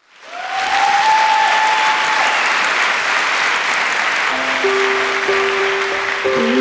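Studio audience applauding. About two-thirds of the way through, steady held notes of instrumental music come in under the clapping.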